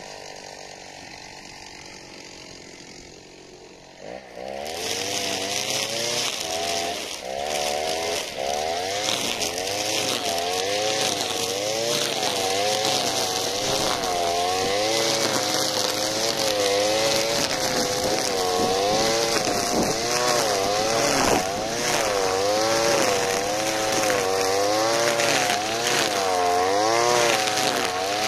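Alpina Star 55DP petrol brushcutter's two-stroke engine running low, then revved up abruptly about four seconds in. Its pitch then rises and falls continually as the spinning trimmer line cuts dry weeds, with a steady hiss from the line whipping grass and dusty soil.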